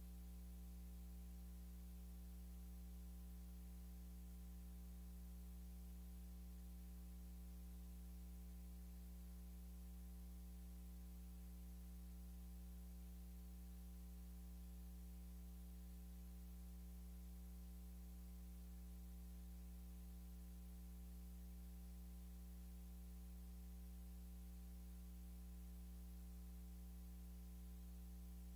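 Near silence apart from a steady, low electrical mains hum with a faint hiss, unchanging throughout.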